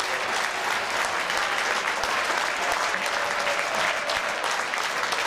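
Football crowd in a stand applauding, many people clapping at once in a dense, steady patter.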